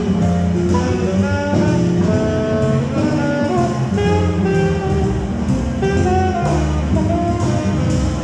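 Instrumental jazz with a melody of held notes over a steady beat.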